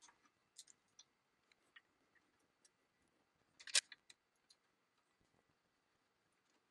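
Faint, scattered small clicks of a hex key working the screws of a small cooling fan being fitted back into a 3D printer's metal frame, with a louder cluster of clicks just under four seconds in.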